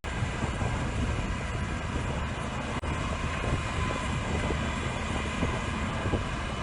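The diesel engine of a 160 hp crawler bulldozer running steadily, with wind on the microphone. The sound drops out for an instant about three seconds in.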